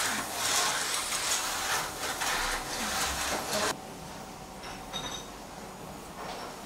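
Canister vacuum cleaner running with a loud hiss that pulses as the floor nozzle is pushed back and forth over a tiled floor. It cuts off abruptly about three and a half seconds in, leaving quieter room sound with a few light clicks.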